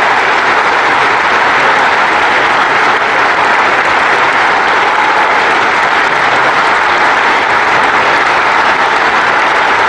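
Basketball arena crowd applauding steadily, an ovation for an injured player being stretchered off the court.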